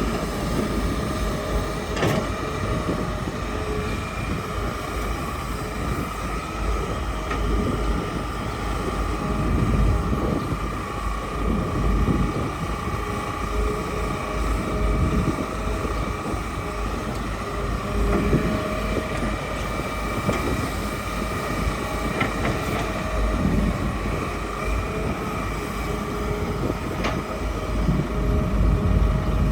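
Hitachi hydraulic excavator working: a steady engine rumble with a constant whine over it, the rumble swelling louder several times.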